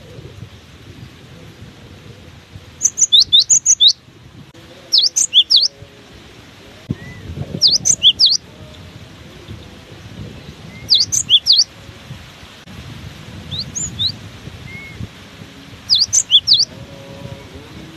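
Cinereous tit (gelatik batu) singing six short phrases of quick, high, down-sweeping notes, one every two to three seconds, over a low rumble of strong wind on the microphone.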